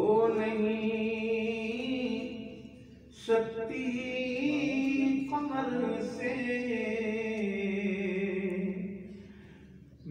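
Unaccompanied solo voice chanting a devotional recitation in long, held phrases, with a short break about three seconds in and the line trailing off near the end.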